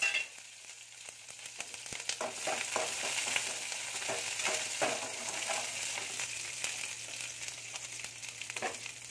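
Chopped green chillies and curry leaves sizzling in hot oil with mustard seeds in a kadhai, a steady crackling hiss that grows louder about two seconds in. They are stirred with a slotted metal spoon, which scrapes and taps against the pan now and then.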